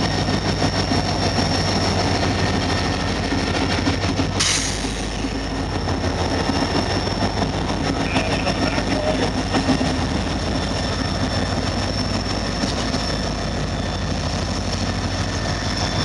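CN diesel freight locomotive pulling a train away, its engine running with a steady low hum while the wheels and cars rumble on the rails. There is a short burst of hiss about four seconds in.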